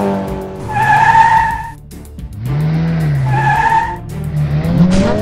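Cartoon race-car sound effects: an engine running, with two tyre squeals, one about a second long starting just under a second in and a shorter one past the middle; the engine pitch climbs near the end.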